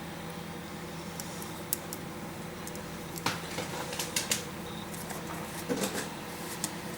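Scattered sharp clicks and light taps of hands handling a MacBook Pro laptop and its display cable, several close together past the middle, over a steady low hum.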